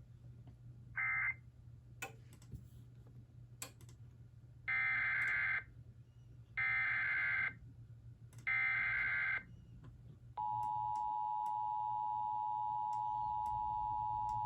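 Emergency Alert System digital data tones: a short burst about a second in, then three screechy bursts about a second long each (the SAME header codes), followed near the end by the steady two-tone EAS attention signal.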